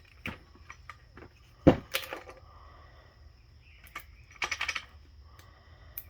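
Metal parts of a 4L65 automatic transmission being handled during teardown: scattered sharp clinks and knocks, the loudest about two seconds in, and a quick rattle of clicks about four and a half seconds in.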